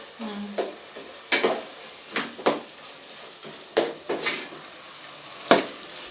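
The pilau base frying and sizzling in a cooking pot while it is stirred: about seven sharp, irregular scrapes and knocks of the spoon against the pot, the loudest near the end.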